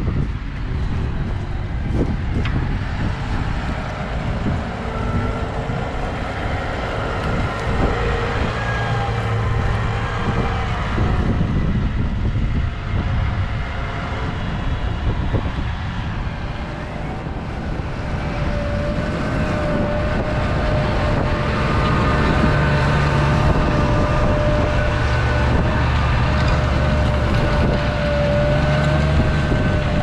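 New Holland T7.315 tractor's six-cylinder diesel engine running steadily while working a seven-furrow reversible plough. It grows louder in the second half as the tractor comes close, with a steady whine over the engine's rumble.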